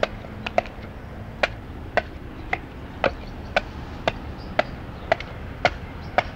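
Small hatchet chopping into a poplar-wood clog blank held on a chopping block, in short sharp strokes about two a second. The strokes notch the upper part and rough out heel and toe, shaping the blank into a left or right clog.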